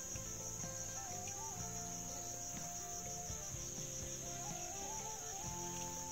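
Steady high-pitched insect drone, with soft background music of long held notes that shift in pitch a few times.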